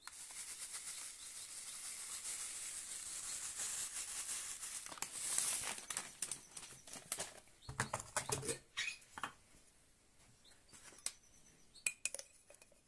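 Cinnamon sugar shaken from a plastic bag onto grated apple: a steady hiss of trickling grains and bag rustle for about six seconds. Then a few knocks and clicks of bowls and a glass jar being handled, with one dull thump.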